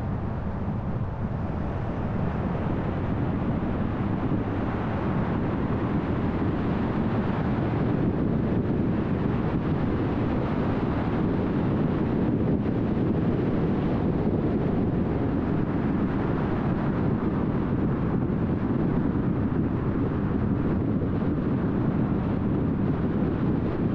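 Steady road noise of a car driving at freeway speed: tyre roar and wind rush. It gets a little louder about a third of the way in, then holds.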